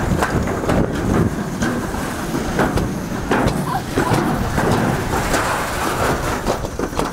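Toboggan sled running down a metal slide chute: a steady rumble and rattle with frequent sharp clicks and knocks.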